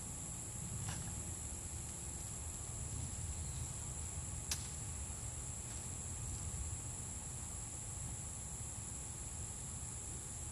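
Field insects such as crickets trilling steadily in two high bands, over a low steady rumble. A single sharp crack about four and a half seconds in, with a few fainter knocks around it.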